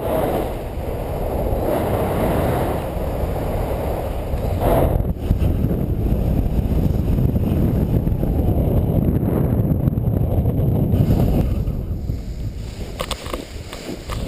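Wind rushing and buffeting over the microphone of a helmet or harness camera during a fast speed-wing flight, a dense low rumble. It eases off near the end, with a few brief clicks.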